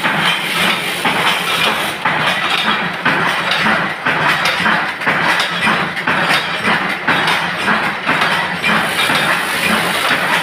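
Bolt-making machinery running: a steady machine drone under a dense, rapid clatter of metal impacts that goes on without a break.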